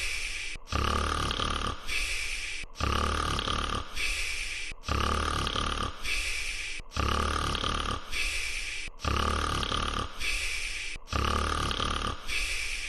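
Cartoon potato character's snoring, looped. A low rumbling snore is followed by a shorter, higher breath, repeating about every two seconds, six times over.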